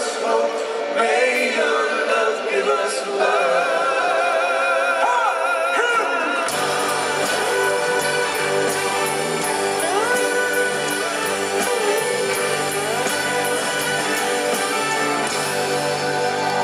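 Live rock band with several voices singing a refrain, at first over light accompaniment with no bass. About six and a half seconds in, the full band comes in with bass and drums, cymbals keeping a steady beat.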